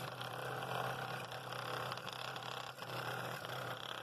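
Scroll saw running steadily, its blade cutting through a walnut bowl blank on a bevel to free a ring.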